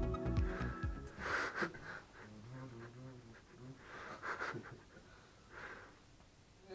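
Background music cuts out about a second in; then a quiet small room with a few short, soft breathy rushes of sound, a person breathing.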